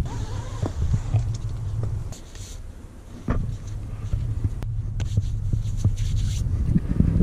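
Low, uneven wind rumble on a chest-mounted action camera's microphone, easing off for about a second two seconds in, with a few small knocks and rustles from hands working the climbing rope.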